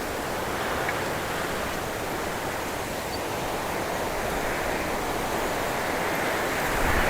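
Wind rushing through cypress branches: a steady hiss that swells slightly near the end.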